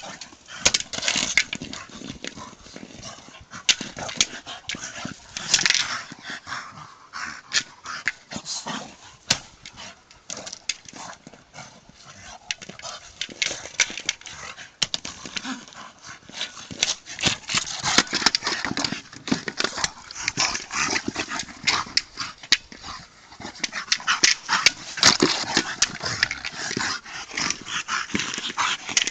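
A Staffordshire bull terrier and a second dog playing rough over a red ball toy: dog play noises and scuffling on the grass, with many sharp clicks and knocks throughout.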